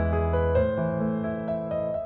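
Background piano music: a slow melody of sustained notes over a low bass note that fades out about a third of the way in.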